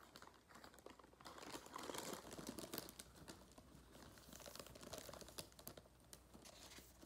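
Faint crinkling of a plastic Cheetos snack bag as a toddler reaches in, with small clicks and crunches of the snacks, busiest in the first half. A picture-book page is turned.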